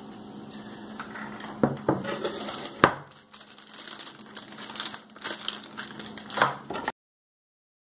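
Packaging and parts being handled: crinkling and rustling with a few sharp knocks, the loudest about three seconds in. The sound cuts off abruptly to dead silence near the end.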